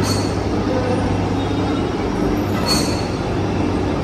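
Steady low hum and rumble of background noise, with no single sudden event.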